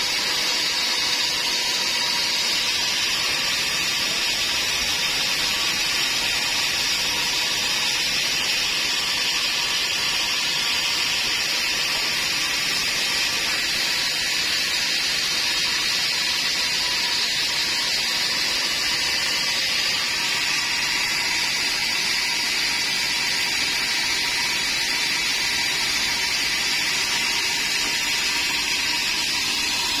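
Band sawmill running steadily with no cut under way, its blade spinning free with an even hiss and a faint steady hum.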